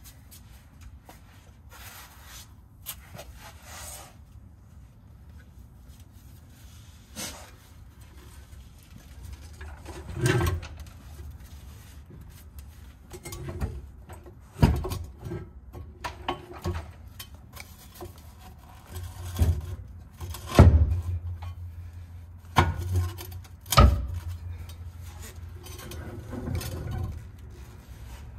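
Hands working a trailer axle into place under the frame: a series of irregular metal knocks and clunks, the loudest about two-thirds of the way through, with rubbing and rustling between them.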